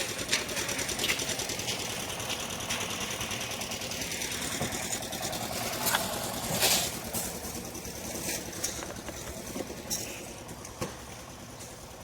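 A machine engine running steadily with a fast, even beat, with scattered knocks and a louder clatter about six to seven seconds in.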